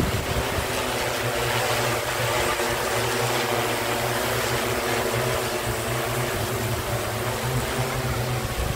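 Agricultural spraying drone's rotors running with a steady buzz, a constant low hum under a rushing hiss, as it sprays.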